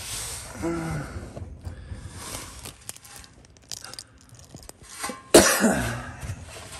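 A man coughs once about five seconds in: a sudden loud burst that trails off into his voice. A short vocal sound comes just under a second in, with faint rustling and clicks in between.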